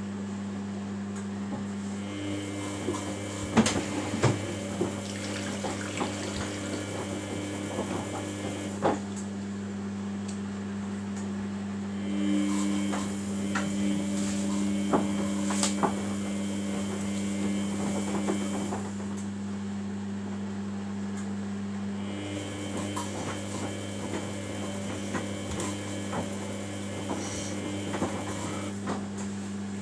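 Samsung WF80F5E0W4W front-loading washing machine in its wash phase: the drum tumbles soapy laundry with sloshing and splashing, its motor whining in spells of about six seconds separated by pauses of a few seconds, over a steady hum.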